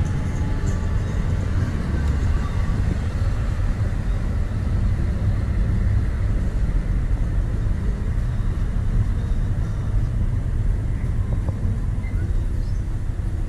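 A car driving on a city street: steady low rumble of the engine and tyres on the road.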